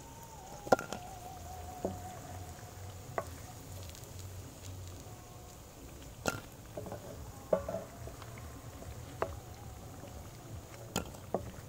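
Cauliflower pakoras sizzling in a pan of hot oil, with several sharp knocks of a wooden spatula against the pan and plate as the fritters are lifted out.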